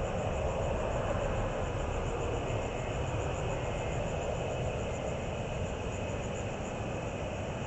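Steady distant city rumble and hiss with no distinct events, as from far-off traffic and trains.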